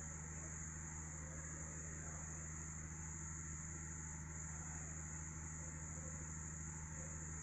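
A steady high-pitched whine over a low hum, unchanging throughout, with no distinct knocks, rustles or strokes standing out.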